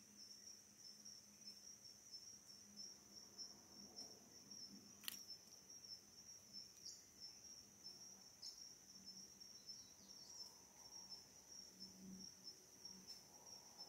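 Faint, steady high-pitched trilling of insects in forest undergrowth, with one sharp click about five seconds in.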